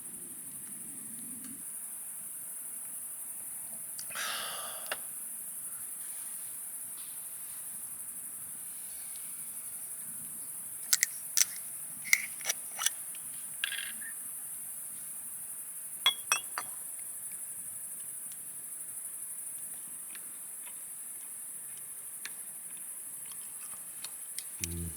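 Night insect chorus: a steady high-pitched chirring. A few sharp clicks and taps are heard about halfway through.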